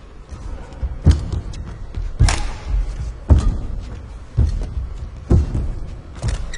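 Badminton rackets striking a shuttlecock back and forth in a rally: six sharp hits about a second apart.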